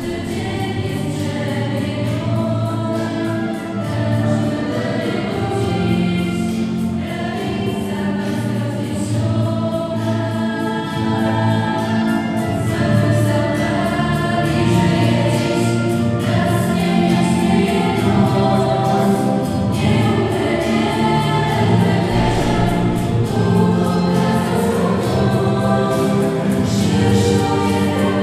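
A choir singing a hymn in long, held notes.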